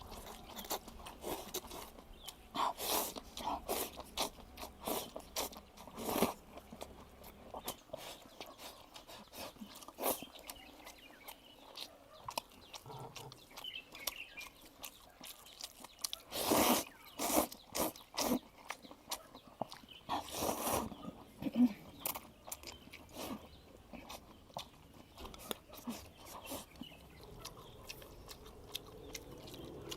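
Close-up eating sounds: crunchy chewing and biting of beef omasum tripe and noodles, many small sharp crunches. There are a few louder bursts partway through.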